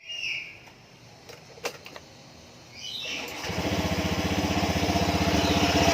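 Honda Scoopy scooter's single-cylinder engine started on its electric starter about three seconds in, after a few light clicks, then running with a steady even beat. It runs after its worn, knocking CVT pulley parts have been replaced with new ones.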